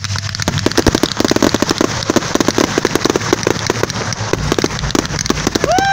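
Aerial fireworks crackling and popping in a rapid, dense, uneven run of sharp bangs.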